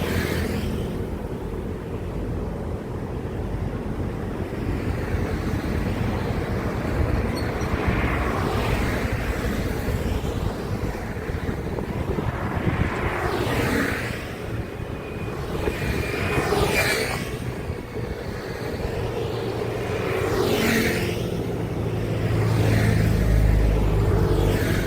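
Heavy road traffic with trucks passing one after another. Engine and tyre noise rises and fades as each vehicle goes by, about four clear passes, over a steady low rumble. A deep engine rumble grows loudest near the end.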